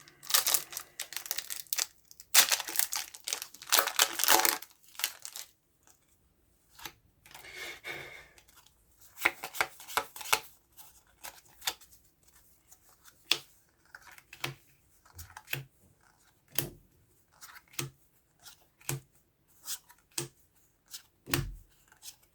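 Foil Pokémon booster pack wrapper being torn open in two long rips over the first few seconds, then scattered soft clicks and rustles of the cards being handled.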